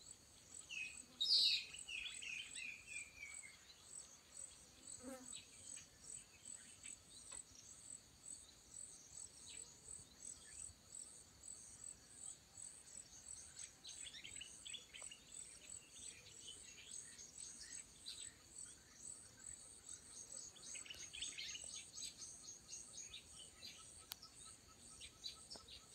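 Insects calling in a steady high pulsing, about two pulses a second, with birds chirping over it: a loud, quick falling run of notes about a second in, and further bursts of chirps later.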